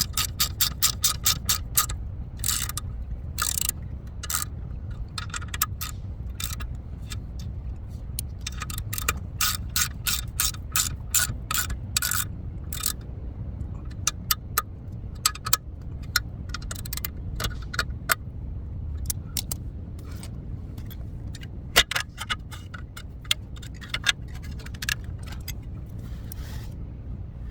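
Hand ratchet wrench clicking in quick runs of about six clicks a second, stopping and starting, with scattered single clicks and metal scrapes between runs. A low steady hum sits underneath.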